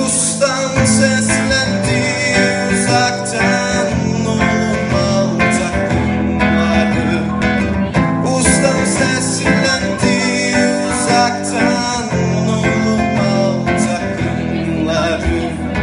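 Acoustic guitar strummed steadily while a man sings along into a microphone, played live.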